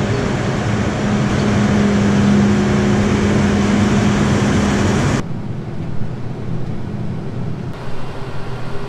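A large diesel farm tractor engine runs loud and steady with a constant low hum as the tractor is driven out of a machine shed. About five seconds in, this cuts off abruptly to a quieter, steady engine rumble heard from inside a tractor cab.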